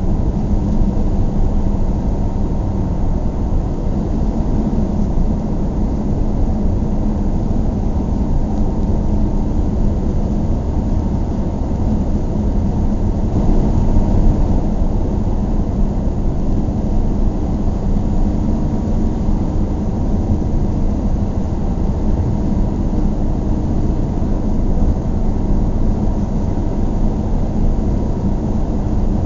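Car driving along, a steady low rumble of engine and tyre road noise that swells slightly about halfway through.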